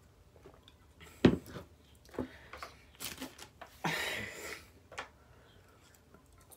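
A plastic cup set down on a hard surface with a sharp thump about a second in, followed by a few small clicks and a short breathy laugh about four seconds in.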